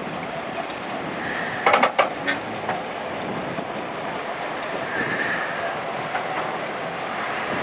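Narrow-gauge steam locomotive rolling slowly along yard track, its wheels and side rods rumbling steadily. A cluster of sharp metallic clanks comes a little under two seconds in, and short squeals come before it and again about five seconds in.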